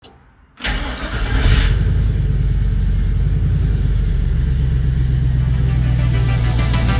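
A pickup truck's engine, a 1954 Chevy 3100's, starts up suddenly and runs with a steady, loud low rumble, with a brief surge about a second in.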